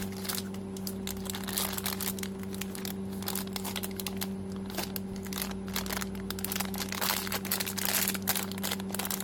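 Plastic candy bag crinkling and crackling as it is handled and checked to see whether it is open, with a steady low hum underneath.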